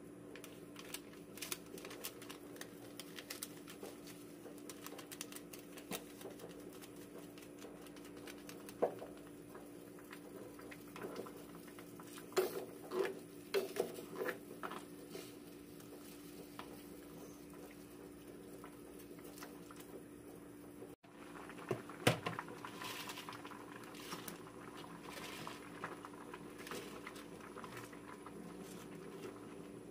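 A stainless steel pot of shrimp-and-crab soup bubbling faintly on the stove, with a low steady hum under it. A metal ladle clinks and knocks against the pot several times around the middle, and again a little later.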